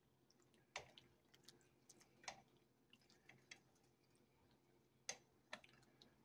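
Faint, scattered clicks and knocks of a slotted spoon against the stainless steel pot and the bones as turkey bones are fished out of the soup, four of them louder than the rest.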